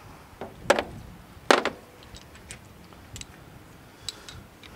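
Small metal hardware, a bolt, washers and a 9/16 wrench, being handled against the metal feeder barrel and its bracket. Two sharp knocks less than a second apart come about a second in, then scattered light clicks.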